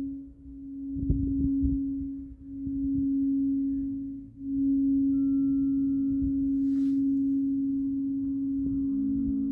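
Singing bowl sounding a steady, nearly pure tone that swells and fades about every two seconds as it is played. A brief faint higher tone and a short scratchy rustle come midway, and a second, lower tone joins near the end.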